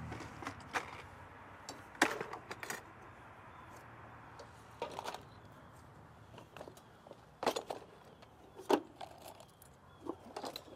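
Scattered light metallic clicks and clinks as a sheet-metal AC disconnect box is handled and tools shift in a leather tool belt. The sharpest knock comes about two seconds in, with a few more spread through.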